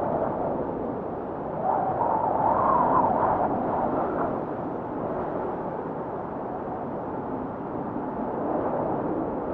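Wind noise blowing steadily, swelling into a stronger gust from about one and a half to four seconds in.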